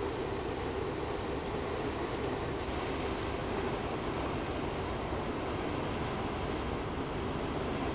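Large container ship passing close by, its engine and machinery giving a steady low drone with no change in pace.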